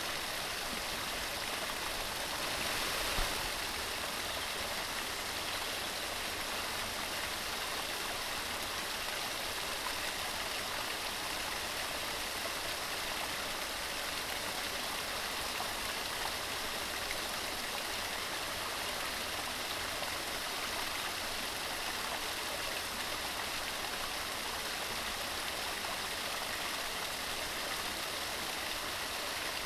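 Mountain stream running steadily, a continuous rush of water. About three seconds in there is one brief louder surge with a short low thump.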